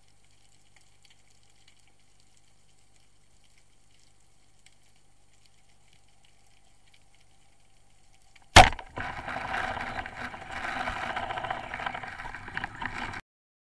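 Rubber-band speargun (Pathos Sniper 95) fired underwater: a single sharp, loud crack about eight and a half seconds in, out of a faint hiss. About four seconds of noisy rattling and churning follow, then the sound cuts off abruptly.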